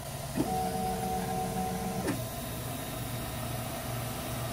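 Qidi X-One 2 3D printer's stepper motors whining for about a second and a half as the print head travels across the bed, with a quick rise in pitch at the start and a fall at the stop. A steady low hum from the printer runs underneath.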